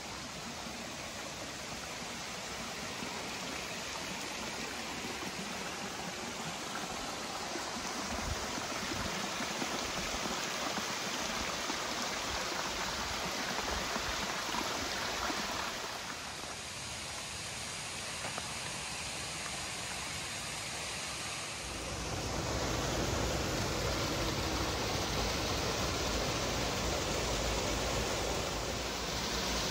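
Rocky stream rushing and cascading over boulders and small waterfalls. The sound changes character twice, about sixteen and twenty-two seconds in, and is louder from the second change on.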